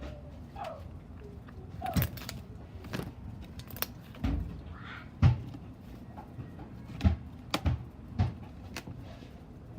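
Slime being squished and played with by hand, giving about eight scattered clicks and pops.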